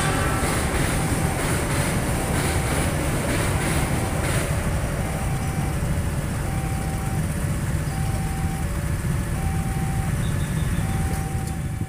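A railway level-crossing warning alarm chimes in an alternating two-note pattern, high then low, over idling motorcycle and car engines in a waiting queue. A train's wheel clatter dies away in the first few seconds.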